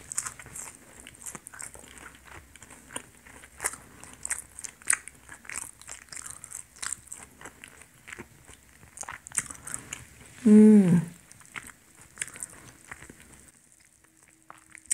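Close-miked chewing and mouth sounds of someone eating a matcha-cream-filled donut, a run of small wet smacks and clicks. About ten and a half seconds in comes a short hum of the voice, falling in pitch.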